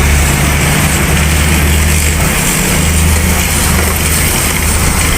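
Heavy road vehicle's engine running close by as a steady low drone, over a constant hiss of traffic noise.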